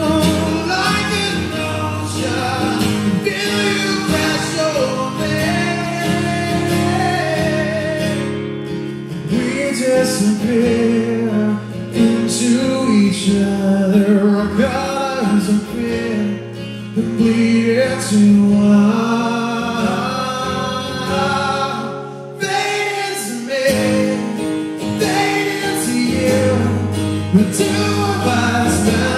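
A man singing live to his own strummed acoustic guitar. The music briefly drops back about three quarters of the way through before coming in again.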